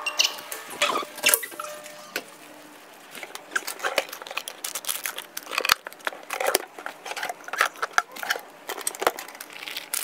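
Hand-handling noises: a few sharp clicks as a digital door lock is touched at the start, then irregular rustling and small knocks as a bag and its contents are rummaged through.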